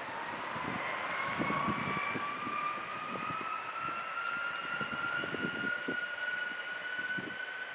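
Boeing 757's jet engines whining as they spool up for takeoff, the whine rising steadily in pitch, with an uneven low rumble underneath.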